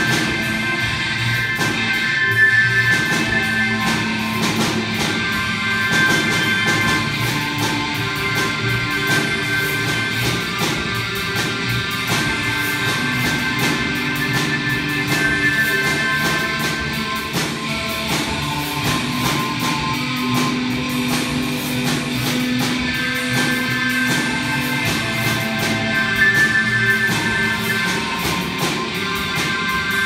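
Robot band playing: electric guitar and bass played by machines, with long held notes over drum and cymbal hits.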